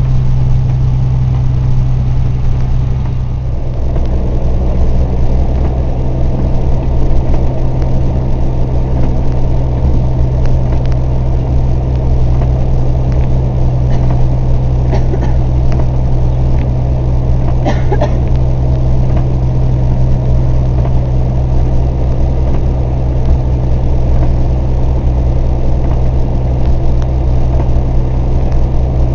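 Snowplow truck's engine running steadily with road noise, heard from inside the cab while driving: a loud, even low drone.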